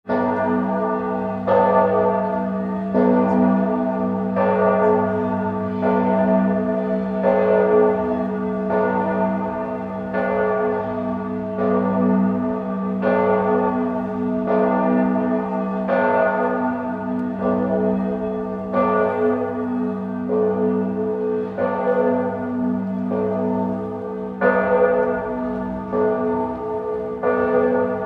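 Church bells ringing, with a new strike about every second and a half, each one ringing on under the next.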